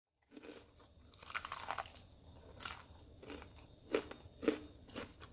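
Crispy crust of spicy fried chicken crunching as a drumstick is broken open, with irregular crackles and a few sharper crunches near the end.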